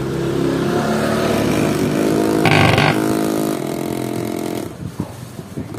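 Electric massager's vibration motor running with a loud, steady buzzing rattle, turning into a harsher clatter for about half a second near the middle. The noise comes from the motor sitting loose in its housing, not clamped tight, so it shakes against the casing.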